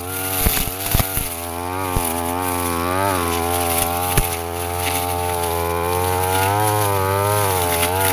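Petrol brush cutter running under load, its engine pitch wavering up and down as the blade cuts through grass. Several sharp ticks of the blade striking stems or debris in the first two seconds and once more about four seconds in.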